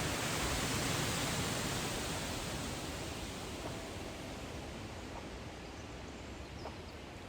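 Steady rushing noise, even across low and high pitches, that slowly fades over several seconds.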